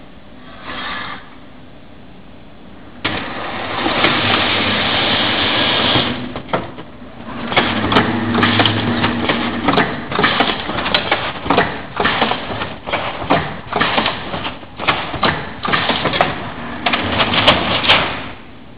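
Automatic roller-shutter assembling machine running: a steady rushing noise for a few seconds, then a fast irregular series of clattering strokes, about one or two a second, as shutter slats are worked through it, over a steady low hum.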